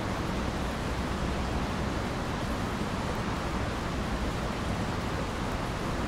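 Steady, even rushing noise with a low rumble underneath, unchanging throughout, with no distinct events.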